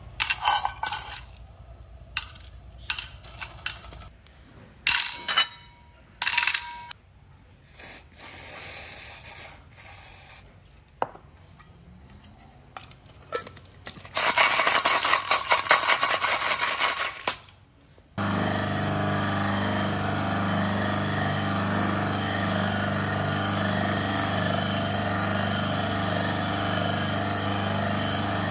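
Small metal parts clinking as they are dropped one by one into a stainless steel cup, then a few seconds of louder rattling. About two-thirds of the way in, an electric motor fitted with a wire brush wheel switches on suddenly and runs with a steady hum.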